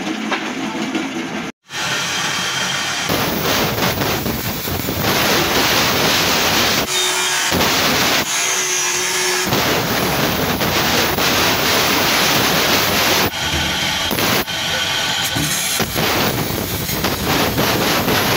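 Loud metalworking workshop noise from power tools or machines working metal. It comes in several short stretches that change abruptly, with a brief dropout about a second and a half in.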